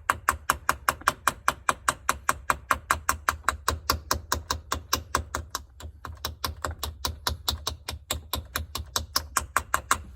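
Screwdriver tapping rapidly on the end of a key in a 1997 Chevy Suburban's ignition lock cylinder, about five taps a second, to vibrate down a lock pin that is stuck up and keeps the key from turning.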